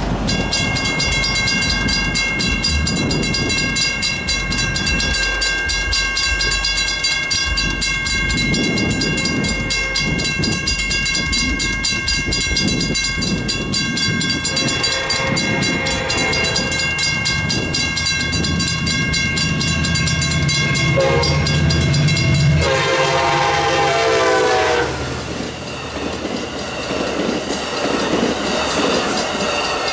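A WCH mechanical crossing bell rings in rapid, steady strokes throughout. An Amtrak F59PHI diesel locomotive approaches with a rising engine hum and sounds its horn, faintly about halfway and then in one strong blast of a couple of seconds about three-quarters of the way in. The train's cars then pass over the crossing with rail clatter.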